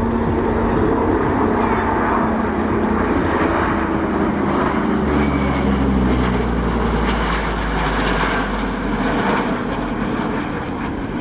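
Lockheed Super Constellation with its four radial piston engines, flying past in formation with Northrop F-5E Tiger II jets. Steady droning engine and jet noise, which deepens in pitch about five seconds in as the formation passes.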